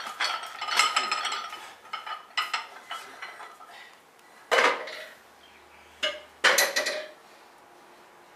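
Loaded barbell and iron weight plates clanking during bench rows: several sharp metal knocks with ringing, a second or more apart, stopping about seven seconds in.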